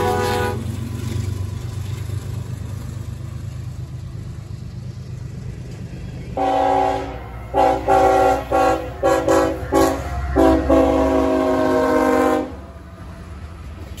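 A freight train's diesel locomotive air horn and the rumble of the passing train. A horn blast cuts off just after the start, leaving the low rumble of the train. About six seconds in the horn plays a pattern: one blast, a string of about five quick short toots, then a long blast that stops suddenly near the end, with the train still rumbling past.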